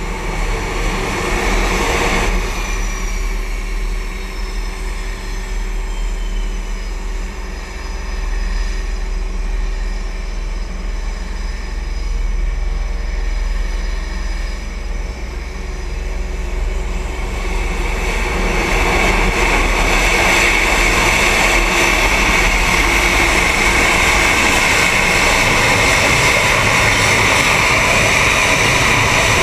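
Carrier fighter jet engines on the flight deck. Early on a jet's roar fades as a falling whine, just after a catapult launch. From about 18 s in, an F/A-18 on the catapult runs up to full power before launch, a steady loud roar with a high whine.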